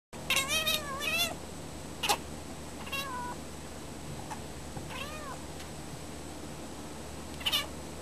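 A domestic cat meowing at wild birds: a quick run of short meows in the first second or so, then single short calls every couple of seconds.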